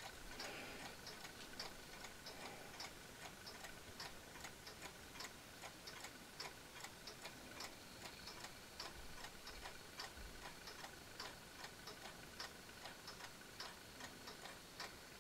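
Faint, steady ticking of mechanical clocks, a few ticks a second.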